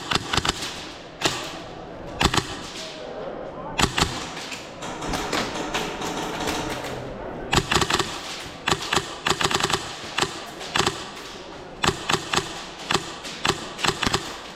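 Airsoft guns firing in repeated quick strings of sharp cracks, with players' voices calling out between the volleys.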